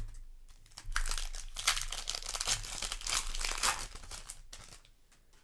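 Crinkling of a Magic: The Gathering booster pack's foil wrapper being handled, a dense run of crackling that starts about a second in and dies away near the end.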